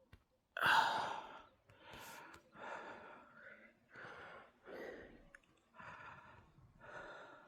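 A person breathing heavily close to the microphone: a loud sigh-like breath about half a second in, then about six more breaths roughly one a second.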